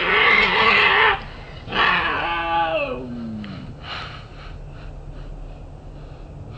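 Cat hissing, then a drawn-out yowl that falls steadily in pitch, both slowed and deepened by slow-motion playback as the cats clash over food.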